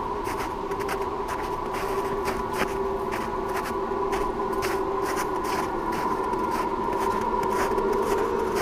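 Jeep 4x4 driving off-road: a steady drone from the running drivetrain, with frequent irregular clicks and rattles over it, growing slightly louder.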